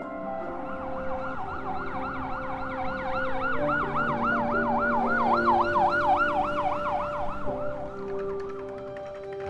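A siren wailing in a fast up-and-down yelp, about three cycles a second, swelling in just after the start and fading out about eight seconds in. Underneath, background music holds long sustained notes.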